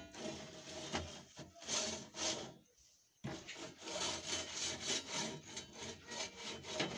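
A small hard object is scraped and rubbed back and forth over the top of a hard box, in uneven strokes with a short pause near the middle.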